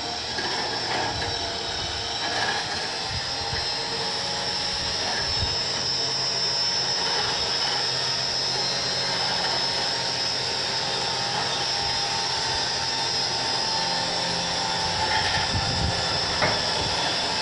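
A 9,000-pound electric winch running steadily under load, its motor and gears whining as it drags a car up the ramps into a truck, with a sharp knock near the end.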